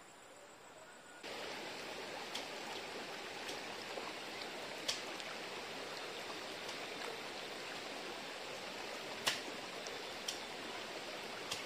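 Steady rush of flowing water, coming in suddenly about a second in after a faint hiss, with a few brief sharp clicks scattered through it.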